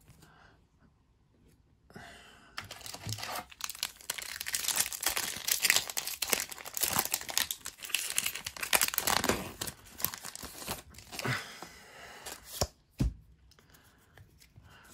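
A Pokémon booster pack's foil wrapper being torn open and crinkled, crackling from about two seconds in until near the end, then a low thump as the card stack is handled.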